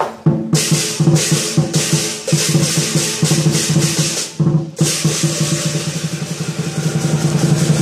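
Lion dance percussion: a large Chinese drum beating a fast, steady rhythm with clashing cymbals and a ringing gong. It breaks off briefly just after the start and again about four and a half seconds in.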